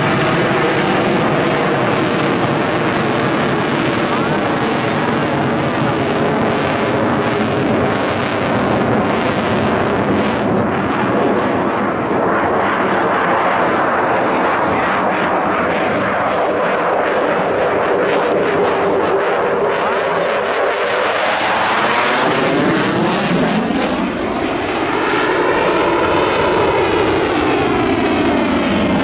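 Loud, continuous jet noise from a Eurofighter Typhoon's twin EJ200 turbofan engines. Near the end, the tone sweeps up and back down as the jet passes.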